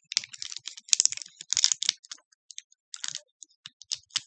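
Plastic candy wrapper being crinkled and peeled by hand: a quick, irregular crackling in clusters of small clicks.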